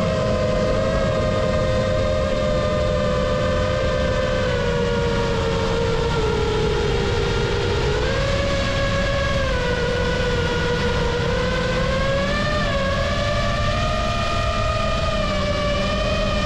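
FPV quadcopter's electric motors and propellers whining in flight, the pitch sagging in the middle and climbing back near the end as the throttle changes, over a steady low rush of wind.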